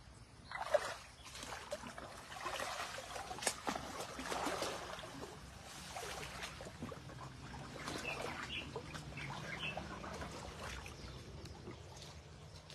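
Rubber boots wading through a shallow stream, water sloshing and splashing with each step.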